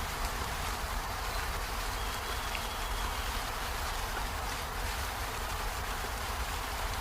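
Steady rain falling on peony flowers and leaves: an even hiss with scattered faint drop ticks.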